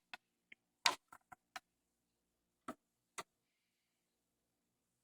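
A run of about nine short, sharp clicks from the Pioneer PL-L800 turntable's front-panel push buttons being pressed, the loudest about a second in, stopping after about three seconds.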